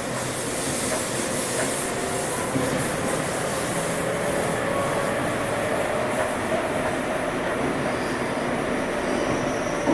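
Running noise heard inside a Seibu 6000 series GTO-VVVF electric train car in a subway tunnel: a steady rumble of wheels on rail with faint motor tones.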